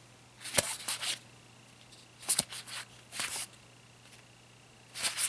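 Trading cards being flipped through by hand, one card slid off the stack at a time: four short rustling slides, two of them with a light click, and quiet between.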